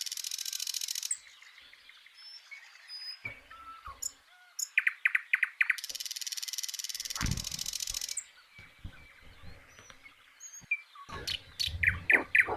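Small birds chirping in short rapid series, loudest near the end, with a high, even trill that sounds for about a second at the start and again for about two seconds in the middle. A few low knocks come in the second half.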